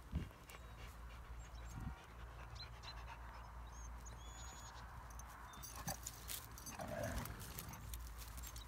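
Young Kangal dogs, one giving a short whine about seven seconds in.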